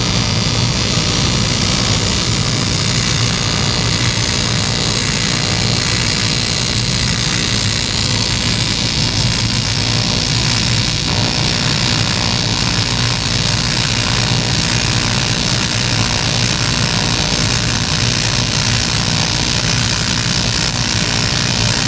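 AC TIG welding arc on aluminium plate running without a break through a fillet weld: a steady, loud electric buzz with a hiss above it.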